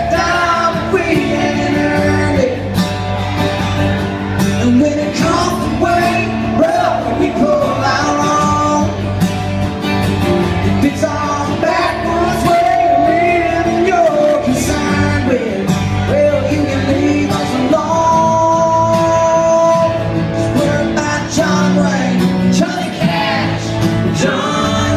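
Live country band playing loudly, with a singer's voice over the band.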